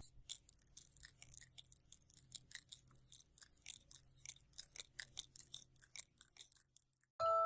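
A bearded dragon crunching a wolf spider: a quick, irregular run of small crisp crunching clicks. Near the end the crunching stops and a loud glockenspiel-like music tune begins.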